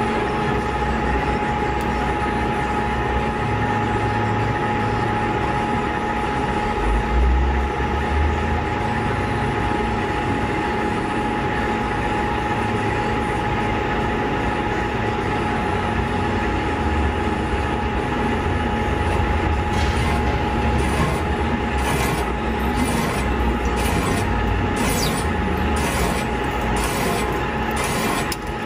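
Large boring machine's long boring bar turning in its outboard support bearing while cutting, a steady machine noise with a constant high whine and a low rumble. About two-thirds of the way in, a regular rasping scrape joins, about once a second.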